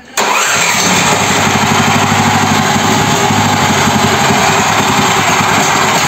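Brait petrol engine of a homemade mini tractor started with the key: it catches at once and runs steadily with an even pulse.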